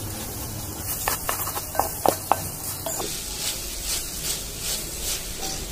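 Wooden spatula stirring and scraping soaked rice as it fries in prawn masala in an aluminium pot, over a faint sizzle; a few sharp scrapes come in the first half.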